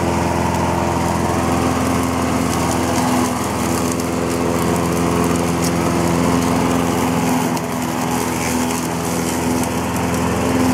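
Craftsman push mower's Honda single-cylinder four-stroke engine running steadily while cutting long grass and weeds.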